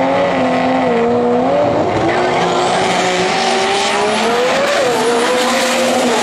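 Two pro mod drag cars, one a Nissan GT-R with a twin-turbo VR38 V6, running at high revs at the start line and then launching hard down the drag strip. The engine pitch holds, dips and climbs as they pull away.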